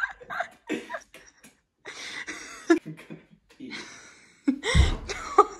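A young man laughing hard in breathy, wheezing bursts with coughs. About three-quarters of the way through comes a heavy low thud.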